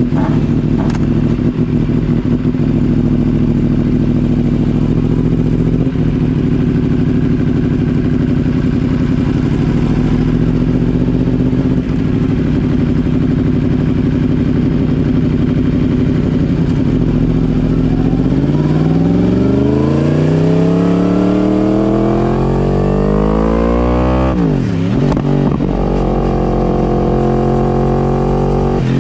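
Superbike engine running steadily at low revs, then from about two-thirds in the revs climb, dip sharply and pick up again, and the engine holds at a higher, steady pitch near the end.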